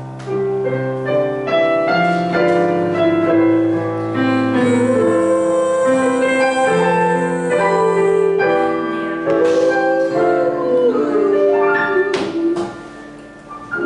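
Digital piano accompaniment played in stepped chords, with a young woman's voice singing long held notes with vibrato over it through the middle. Near the end the voice stops and the piano plays on more softly.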